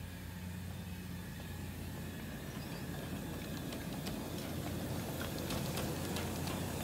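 Scale freight cars rolling along the track toward the listener: a low rumble of wheels on rail that grows steadily louder, with sharp clicks from the wheels over rail joints in the second half. A steady low hum runs underneath.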